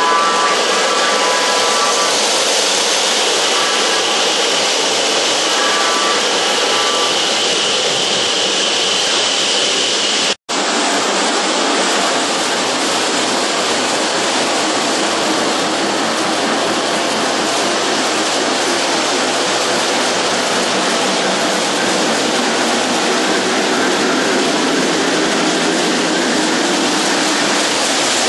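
Lionel O-gauge model train rolling along three-rail track, a steady rushing rumble of metal wheels on metal rail. The sound cuts out completely for a moment about ten seconds in, then carries on as before.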